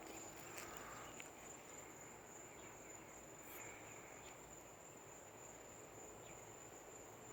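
Faint night ambience: a steady high-pitched insect trill, with a few faint short chirps scattered through it.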